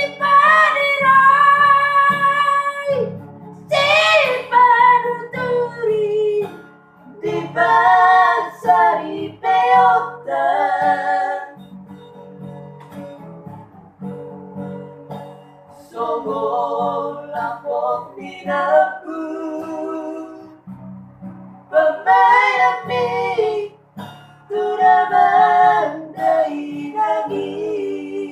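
A high voice singing a slow song in phrases a second or three long, with vibrato, over plucked guitar accompaniment.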